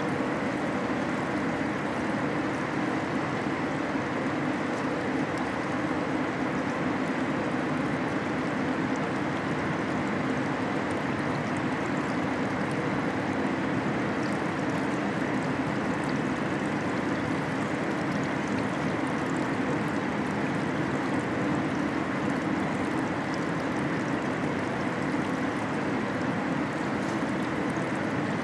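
Liquid in a car-body dip tank flowing and circulating with a steady rush and trickle, over a steady low hum from the plant.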